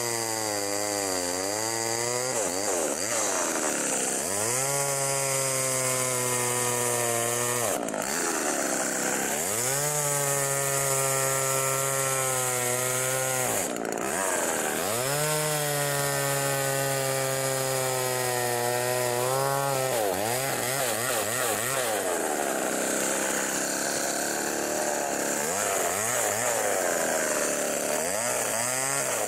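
Homelite XL two-stroke chainsaw cutting through a log at full throttle, its pitch sagging as the chain bites and climbing back again several times. The engine runs lower and more unevenly in the last third and drops in pitch near the end.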